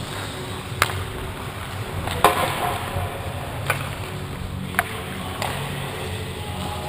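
Sharp clacks of hockey pucks and sticks on an ice rink, four in all, the loudest about two seconds in followed by a short scrape, over a steady low rumble of the arena.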